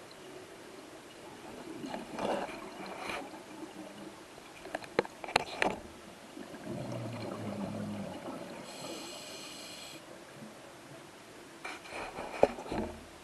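Scuba diver breathing underwater through a regulator: hissing, clicking breaths, with a burbling rush of exhaled bubbles a little past the middle.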